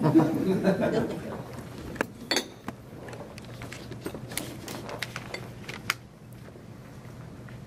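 Scattered light clinks and knocks of glassware and dishes on a table, a dozen or so over a few seconds, stopping about six seconds in.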